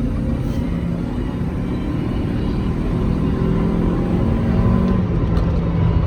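2003 Honda CR-V's 2.4 L K24A1 four-cylinder engine pulling hard under full throttle. The note rises steadily, then steps down about five seconds in. This is a full-throttle test of the VTEC system after a dirty VTEC solenoid was cleaned to cure a P1259 VTEC malfunction code.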